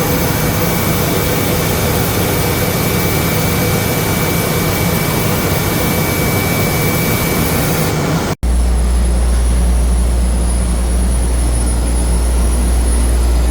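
Industrial laundry machinery running loudly: a steady rushing noise with a high whine. About eight seconds in it cuts to a deep, steady low hum from other machines.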